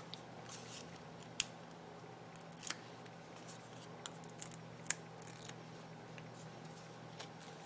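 Cardstock being handled and pressed onto a card: a few light, scattered clicks and taps of paper on paper and on the table, over a faint steady hum.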